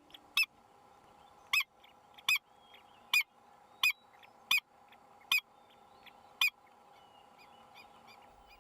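A bird calling over and over: eight short, harsh calls about a second apart that stop about six and a half seconds in. Fainter small chirps from other birds sound between them.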